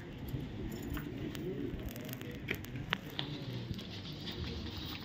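Indistinct background voices of a gathered group of people, with a few sharp clicks near the middle.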